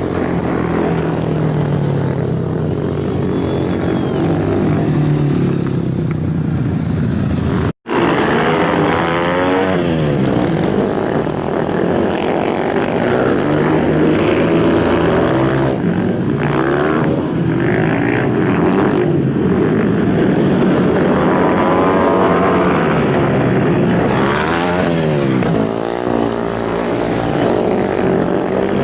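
Racing motorcycle engines running at high revs, their pitch sweeping up and down as bikes go past. The sound cuts out completely for a split second about eight seconds in.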